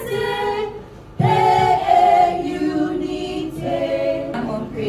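A group of students singing together without instruments, in long held notes, with a short break about a second in.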